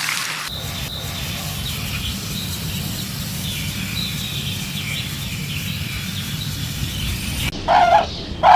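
Outdoor background with a steady low rumble and faint, high, scattered chirping. Near the end, an animal gives two loud, short calls about a second apart.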